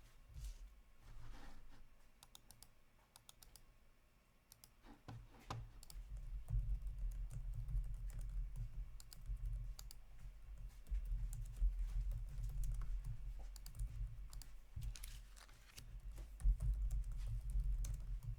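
Scattered clicks of typing on a computer keyboard, over a low rumble that sets in about six seconds in.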